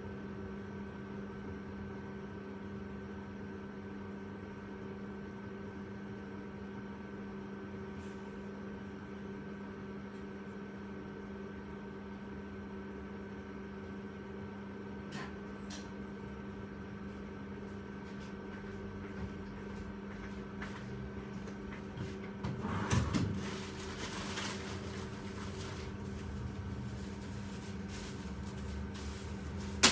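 A steady electrical hum from a household appliance. About two-thirds of the way in there is a short burst of clattering.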